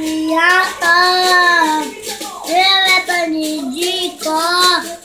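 A young boy singing a Portuguese worship song unaccompanied, in several long phrases with held notes.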